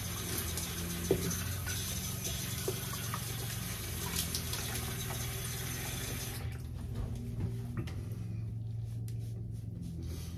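Tap running into a sink, with splashing as the face is rinsed after a shave; the water is shut off about six and a half seconds in.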